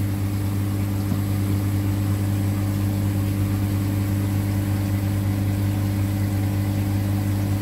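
Electric pump motor driving a Fluid-o-Tech PA204 brass rotary vane pump, running steadily with a constant low hum. It is feeding a reverse-osmosis unit at about 90 psi.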